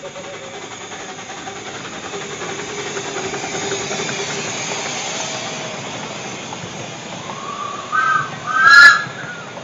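Miniature steam locomotive hissing and puffing steam as it passes close by hauling its carriages, the sound swelling as it goes by about four seconds in. Near the end come two short, loud, high-pitched squeals.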